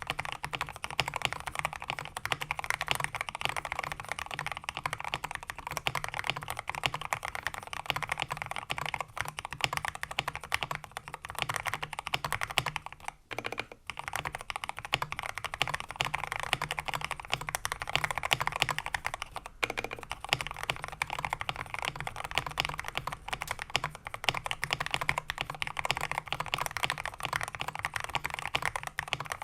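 Fast, continuous typing on a 60% mechanical keyboard built with Gateron Milky Yellow linear switches on an FR4 plate in a wood case, with XDA keycaps and a tape mod. The keystrokes clack densely, with a brief break about 13 seconds in and another around 20 seconds.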